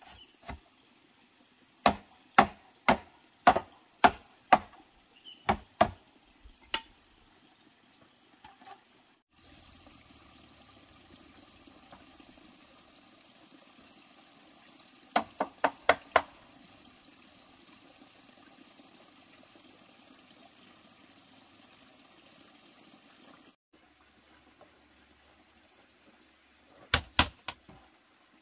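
Sharp knocks of a tool striking bamboo: about ten irregular strikes in the first seven seconds, a quick run of four around the middle, and three close together near the end. Crickets or other insects shrill steadily in the background throughout.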